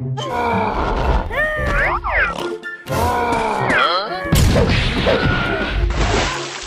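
Cartoon soundtrack: music with sliding, whistle-like comic sound effects in the first half, then a loud noisy rush that ends in a splash into water near the end.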